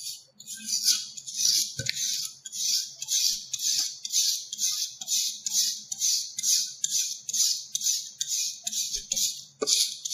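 Aluminium specimen being sanded by hand with 200-grit sandpaper in even one-direction strokes, about three strokes every two seconds. This is the surface preparation before a strain gauge is bonded.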